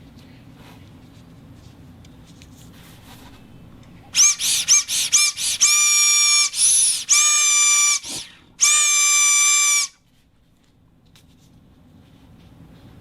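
High-pitched whistle-like toots from a sound-effect noisemaker. First comes a quick run of about seven short toots, then four longer held notes, one of which bends upward in pitch, with a brief low thump between the last two.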